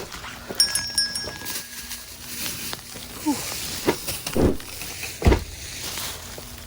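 Knocks and thumps of a car door, frozen shut under ice, being worked at and pulled open, with a short run of electronic beeps about half a second in.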